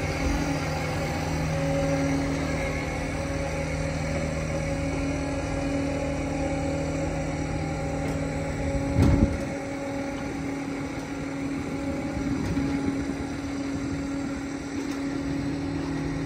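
A vehicle engine idling steadily, with a brief louder rush about nine seconds in.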